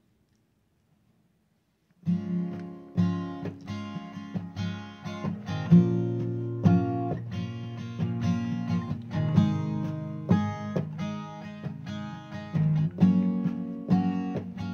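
Acoustic guitar starting about two seconds in after near silence, playing chords in a steady, even rhythm.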